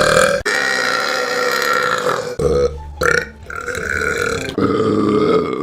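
Several long, loud human burps in a row, each cut off abruptly where the next begins.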